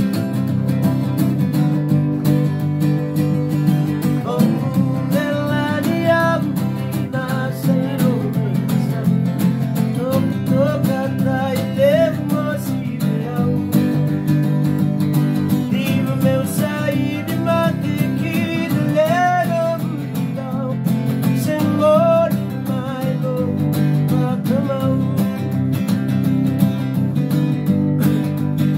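Acoustic guitar strummed in steady chords, with a man singing over it from about four seconds in.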